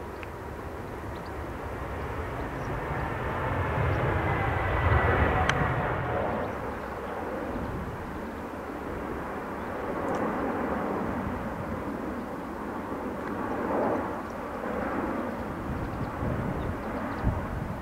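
Jet roar of a Boeing 787 Dreamliner's twin turbofans on a low display pass. It swells to its loudest around five seconds in, with a faint whine falling in pitch as the jet goes by, then runs lower with smaller swells later on.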